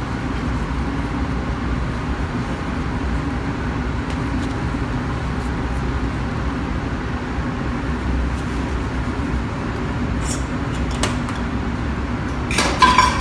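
Steady low rumble of commercial kitchen ventilation with a faint hum, and a short clatter near the end.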